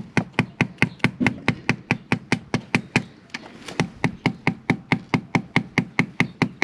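Small hammer striking metal in quick, light taps, about five a second, with a short ring on each blow. It is hammering on a seized, rounded-off motorcycle oil drain bolt to shock it loose.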